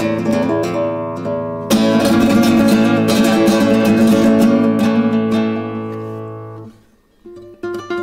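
Solo flamenco guitar on a nylon-string guitar: ringing strummed chords, then a hard chord struck about two seconds in that rings on and slowly dies away. After a brief pause near the end, softer single plucked notes begin.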